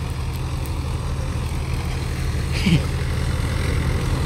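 Mahindra tractor's diesel engine running steadily under load, driving a thresher through its power take-off while fenugreek is fed through. About two-thirds of the way in, a short sound falls in pitch.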